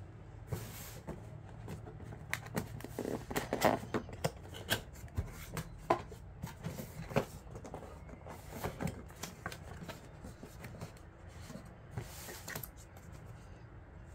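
Camcorder packaging being handled: irregular rustling and sharp clicks, busiest in the middle, with a longer rustle near the start and another near the end.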